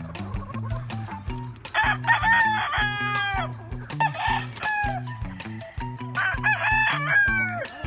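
Gamefowl roosters crowing: two long crows, one about two seconds in and another about six seconds in, each rising, holding and falling away. Background music with a repeating bass line plays underneath.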